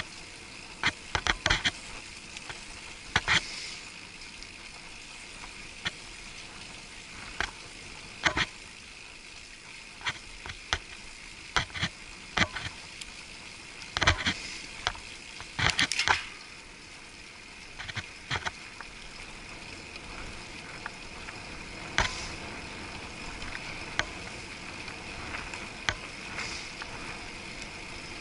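Muffled riding noise from a bicycle-mounted action camera sealed in a waterproof housing, with irregular sharp clicks and knocks as the bicycle and camera mount jolt over the road surface.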